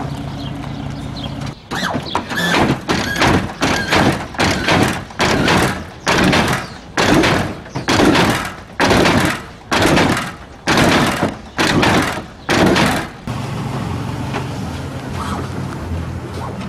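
A Buick Regal G-body's engine idling, broken by a run of about a dozen loud, abrupt bursts, each well under a second, that start and stop sharply, with thunks among them.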